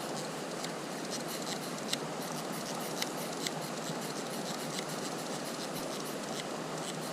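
Steady rush of river water, with scattered light clicks and scrapes of close handling over it.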